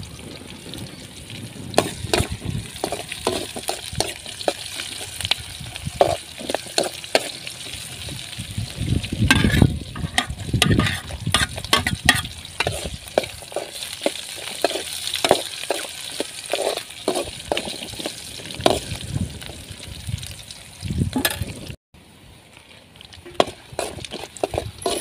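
Onions, garlic and green chillies sizzling as they fry in a large metal bowl over a wood fire, with a metal spoon scraping and clinking against the bowl as they are stirred. The sound breaks off briefly near the end.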